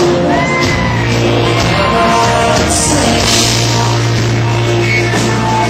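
Live rock band music, an instrumental stretch between sung lines, with a held low bass note and sliding higher melody lines.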